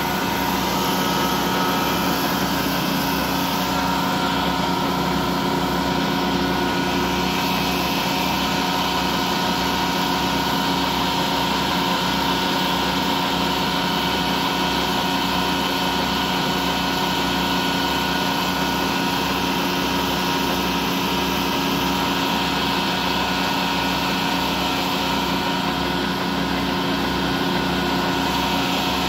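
Vertical lathe running with a steady motor and gearbox hum as its tool cuts a groove into a large steel ring.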